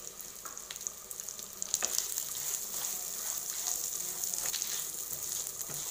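Coconut pieces, whole spices and curry leaves sizzling as they roast in a little oil in a pan. From about two seconds in, a wooden spatula stirs them with scraping clicks against the pan.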